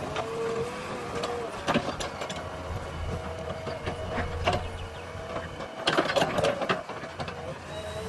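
JCB backhoe loader working: the diesel engine runs with a low hum and a steady, wavering whine, under repeated knocks and clanks, with a cluster of them about six seconds in.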